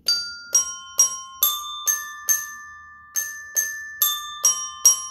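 A set of coloured diatonic desk bells tapped one after another in a short tune, about two clear dings a second, each note ringing on after its strike. The tune comes in two runs with a brief pause near the middle.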